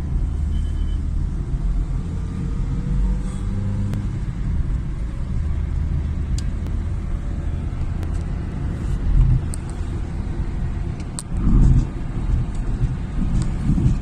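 Steady low rumble of a car driving, heard from inside the cabin, with a few faint sharp ticks scattered through it and a louder swell of the rumble near the end.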